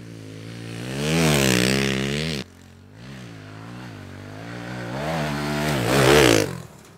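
Kawasaki KLX110 pit bike's small single-cylinder four-stroke engine being ridden hard, revving up and down in quick swells through the gears. It is loud for a second or two, then drops away suddenly. It builds again and is loudest as the bike passes close near the end, then cuts off.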